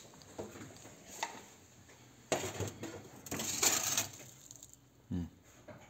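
Handling noises: light clinks and knocks, with two longer, louder noisy bursts in the middle.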